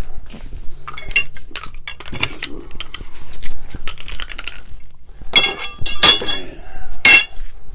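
Metal high-CFM grow-tent support poles clinking and knocking against each other as they are gathered up and laid down on the floor. The loudest ringing clinks come about five to seven seconds in.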